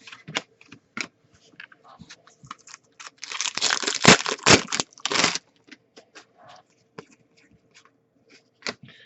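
Trading cards and their packaging handled by hand: scattered light clicks and taps, with a loud papery tearing rustle lasting about two seconds in the middle.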